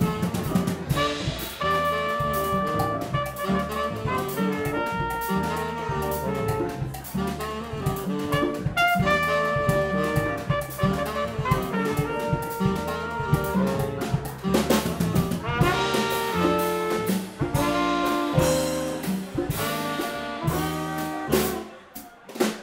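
Small jazz band playing: trumpet and saxophone over upright bass, keyboard, drum kit and congas. The music drops away briefly near the end.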